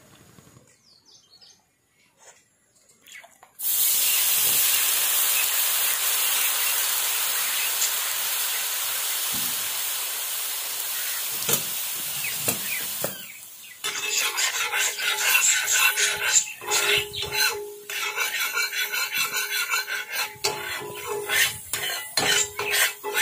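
Liquid hitting a hot cast-iron tawa breaks into a sudden loud sizzle about four seconds in, fading slowly. From about fourteen seconds it turns to uneven crackling, with a plastic spatula scraping and tapping the pan.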